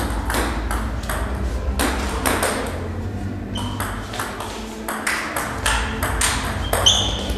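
Table tennis ball clicking off rubber paddles and the table top in a rally, with a brief lull in the middle before a serve and play resumes. A couple of short high squeaks, typical of shoes on the wooden floor, and a steady low hum of the hall underneath.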